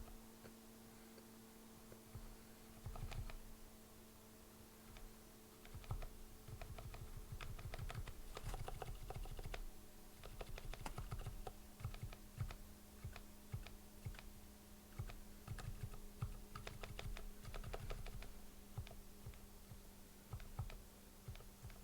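Typing on a JJ50 mechanical keyboard with lubed MX Zilent silent tactile switches: quiet, muffled keystrokes in irregular runs, starting a couple of seconds in. A faint steady hum sits underneath.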